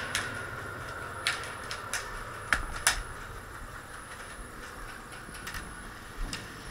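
About eight sharp clicks and knocks, irregularly spaced, over a steady background hiss during an indoor airsoft game. The loudest pair comes about two and a half seconds in.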